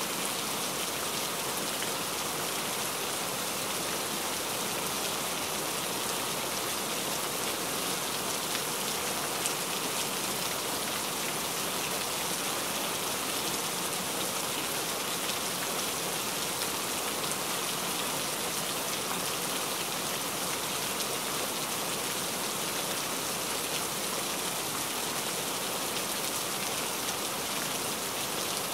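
Heavy rain falling steadily, a dense, even hiss of drops striking a surface, with fine individual drop patter throughout.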